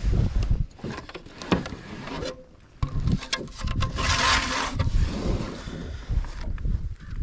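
Knocks, clicks and scrapes of gear being handled against a plastic fishing kayak's hull, as a fish-measuring board is moved about, with a short hissing rush about four seconds in.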